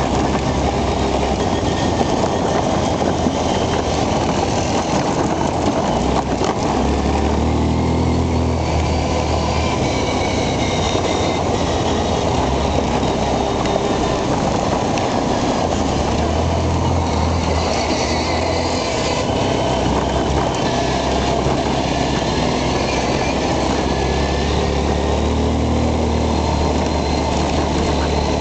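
Quad bike (ATV) engine running while riding over a gravel dirt track, its pitch rising and falling with the throttle, with a steady noisy rumble of tyres and travel over the rough ground.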